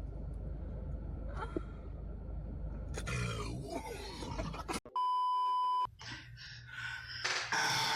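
A steady electronic beep at one high pitch, like a censor bleep, cuts in sharply about five seconds in and lasts about a second. Before it there is a low rumble and a voice-like sound that wavers in pitch for a couple of seconds. Loud noise starts near the end.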